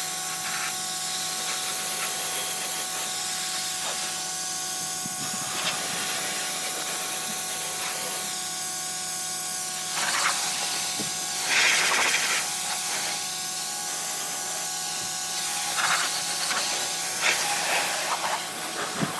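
Pressure washer spraying water onto a pickup truck: a steady high hiss over the constant hum of the machine, growing louder twice as the jet comes closer or hits the panels more directly.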